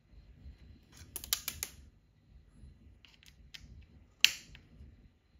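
Small sharp clicks of tiny screws and a hex key being handled at a 3D printer's extruder head. There is a quick run of clicks about a second in, a few fainter ones around three seconds, and one loud click a little past four seconds.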